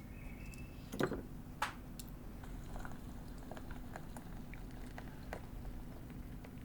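Low steady hum with scattered small clicks and taps, and a single louder knock about a second in.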